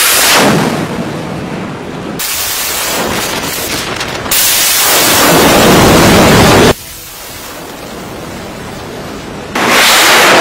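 RGM-84 Harpoon Block 1C anti-ship missile launching from a deck canister launcher, its solid-fuel rocket booster firing with a loud rushing noise. It comes in several stretches that start and stop abruptly, loudest from about four to nearly seven seconds in and again near the end.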